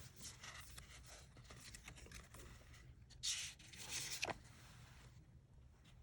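Quiet handling of paper and cardboard packaging: light rustles and small clicks, with two louder rubbing rustles a little past the middle.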